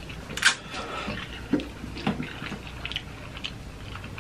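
Eating sounds of spicy instant noodles: a sharp slurp about half a second in, then scattered soft, wet chewing and mouth noises.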